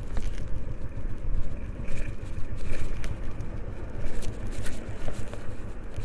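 Motorcycle being ridden along a road, its engine running steadily under a low wind rumble on the handlebar-mounted camera's microphone.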